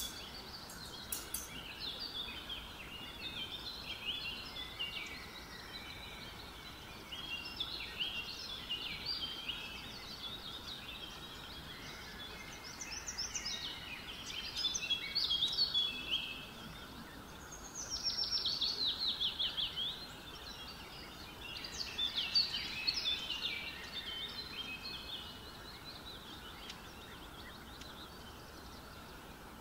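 Small birds chirping and calling on and off over a steady background hiss, with a fast trill of rapidly repeated notes about two-thirds of the way through.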